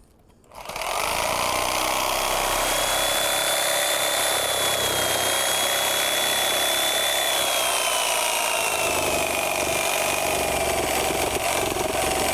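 Corded reciprocating saw cutting a round hole through an asphalt-shingled roof. It starts up just under a second in and then runs steadily under load, with its motor whine sinking slowly in pitch as it cuts.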